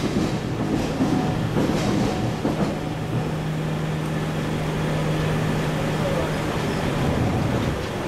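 Iyotetsu streetcar running along street track, its wheels clacking over the rail in the first few seconds over a steady low hum, with road traffic passing.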